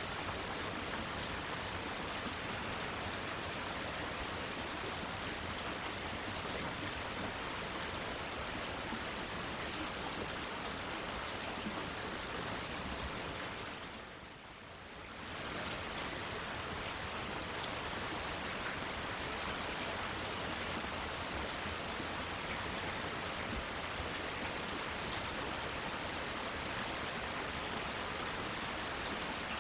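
Steady rain falling, an even hiss with faint scattered drips; it dips and fades back in about halfway through.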